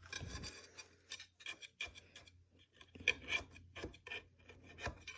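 Irregular scraping and rubbing strokes: a utensil scraping at a baked cake layer in its metal pan to work it out.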